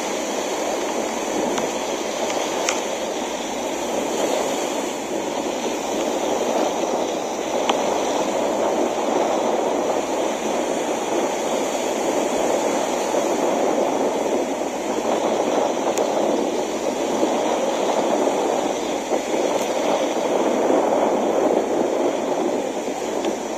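Steady rushing beach ambience: small waves washing up the sand, mixed with wind.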